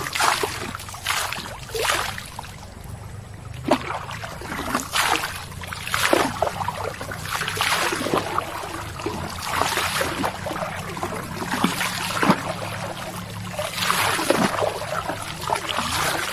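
Water pouring and splashing as scoops from a plastic dipper are poured over a person's head and hair, in repeated splashes every second or two, with water running and dripping off in between.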